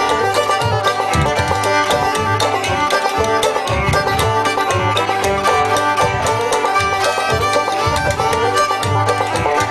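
Bluegrass-style string-band music: fiddle and banjo playing an instrumental passage without singing, over a steady beat.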